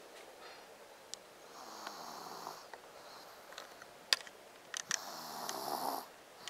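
A sleeping baby snoring: two snores about three and a half seconds apart, each lasting about a second. A few sharp clicks fall between them, the loudest a little after the middle.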